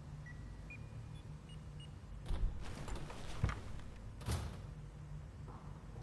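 Rustling and creaking of a jacket and leather armchair as a man shifts and leans forward in his seat, in a few short bursts a couple of seconds in, over a low steady hum.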